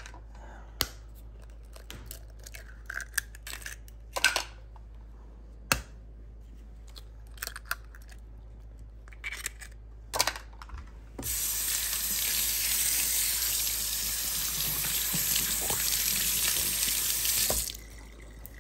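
Scattered clicks and taps of eggs being cracked and their shells handled over a plastic jug and a small bowl. About eleven seconds in, a kitchen faucet starts running steadily under the hands at the sink, and it is shut off abruptly about a second before the end.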